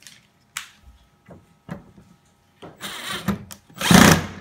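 Handling noise: a few light knocks, then louder rustling scrapes about three seconds in, the loudest near the end.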